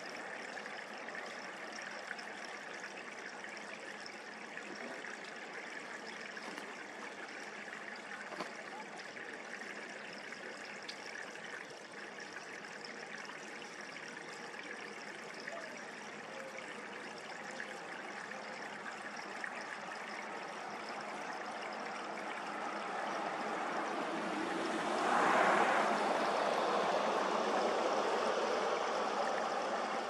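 Steady sound of running water trickling, growing louder late on and staying louder.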